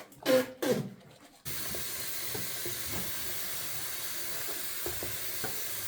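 A water tap turned on about a second and a half in, then running steadily with an even hissing splash.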